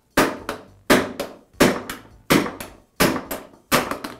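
Hammer striking a steel socket set on a Milwaukee band saw's sprocket shaft, driving the shaft out of its gear held in a bearing separator over vise jaws. About six sharp metallic blows at an even pace, roughly one every 0.7 seconds, each with a short ring.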